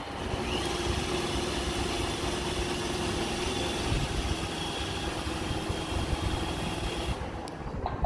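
iRobot Roomba i7 robot vacuum running as it drives back onto its charging dock: a steady motor whirr with a thin whine over it. The whine and much of the hiss cut off about seven seconds in as it reaches the dock.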